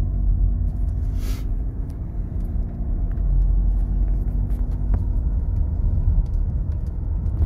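Cabin noise of a Seat Leon 5F on the road: a steady low rumble of engine and tyres with no rattle from the instrument cluster, whose loose upper mounting tabs have been padded with filter fleece.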